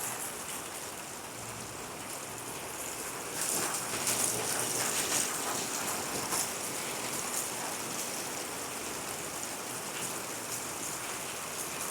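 Hail falling steadily: a dense hiss of countless small hits on the ground and surfaces, heaviest from about three and a half to six seconds in.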